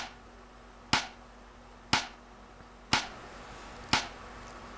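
Mysterious ticking noise: sharp, single ticks evenly spaced about one a second, five of them, keeping a steady beat over a faint steady hum.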